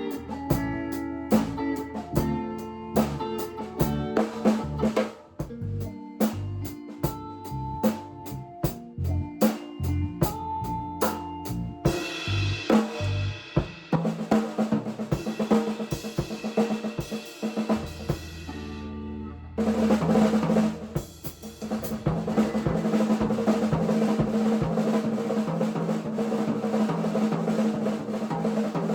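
A rock band rehearsing: a drum kit with snare and bass drum keeping a steady beat under guitar and bass. About twelve seconds in the playing fills out with cymbals, breaks off briefly a little after eighteen seconds, then comes back in full.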